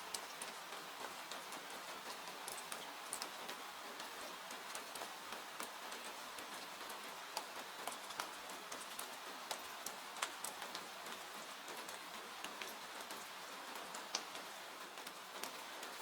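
Steady rain falling, with many small irregular crackles and pops of a wood fire.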